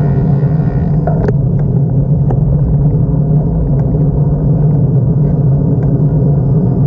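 Motorcycle engine running steadily while riding, a constant low drone mixed with wind noise, with a faint click about a second in.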